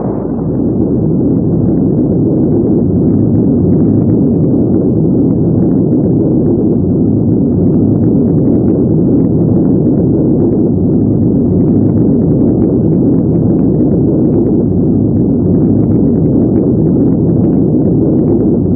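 A car engine running steadily: a loud, even noise that holds level throughout, with no revving.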